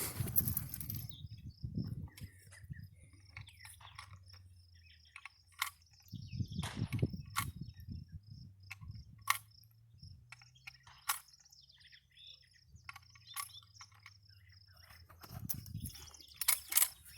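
Outdoor ambience: a steady, high, pulsing chirping trill runs throughout, with scattered sharp clicks and knocks and a low rumble. No gunshots.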